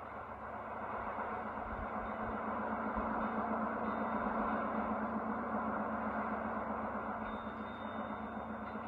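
Staten Island Ferry running across the harbor: a steady low engine drone under a broad rushing noise, swelling as the boat passes close and then easing off.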